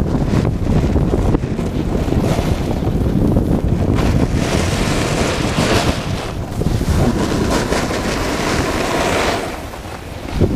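Wind buffeting a GoPro's microphone at riding speed on a snowboard descent, over the hiss of the board sliding on snow. The rush eases shortly before the end.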